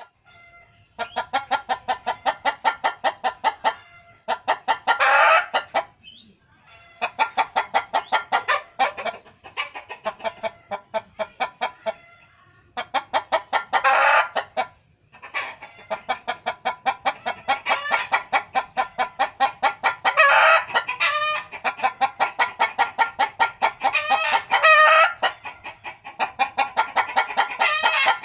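Chickens clucking in long, rapid runs of about seven clucks a second, broken every few seconds by a louder, drawn-out call.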